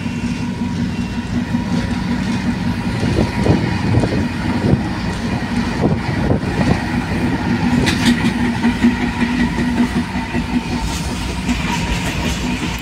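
Transnet Class 45 diesel locomotive running under way, heard from its window: a steady engine hum, with uneven rushes of wind and train noise in the middle of the stretch.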